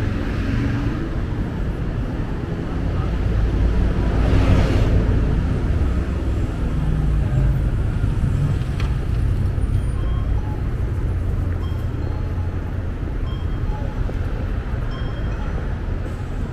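Busy city street ambience: steady traffic noise with people talking, and a louder swell of passing-vehicle noise about four seconds in.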